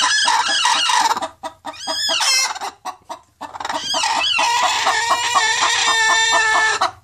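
Broody hens on the nest squawking and growling in protest at being approached. A run of harsh calls comes first, then a sharp squawk about two seconds in, and after a short lull one long, drawn-out complaining call until near the end.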